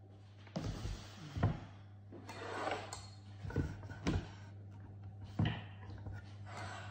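Handling knocks and clunks of a Vitamix blender's plastic jug as its lid is gripped and it is lifted off the motor base, with short scraping sounds between, five or six knocks in all. A steady low hum runs underneath; the blender motor is not running.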